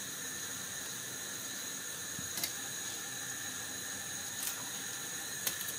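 Faint, steady hiss with a few soft knocks spread over several seconds, as cucumbers are laid one by one into the pickling vessel.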